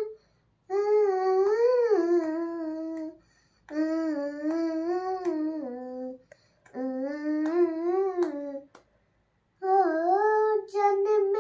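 A young girl singing a slow devotional tune in four drawn-out phrases with short pauses between them. Her voice rises and falls smoothly within each phrase, and near the end it moves into shorter, quicker notes.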